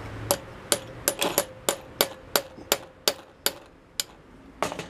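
A small hammer tapping a steel pin punch about a dozen times, roughly three sharp metallic strikes a second with a short ring to each, pausing briefly before a last double tap near the end. The taps drive a small pin out of a part of a hammer shotgun's lock.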